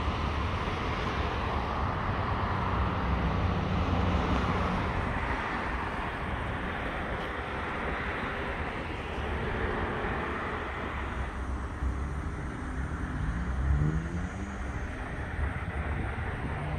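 Road traffic noise: a steady rumble and hiss, with a vehicle's engine tone sliding up and down in pitch about thirteen to fourteen seconds in.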